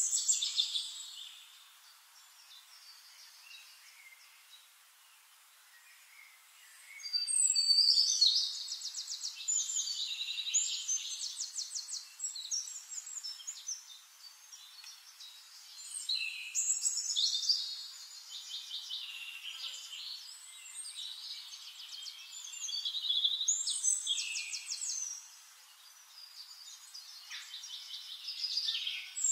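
Songbirds singing in bouts of rapid trills and chirps, with quieter gaps between the bouts; the sound is thin, with no low end.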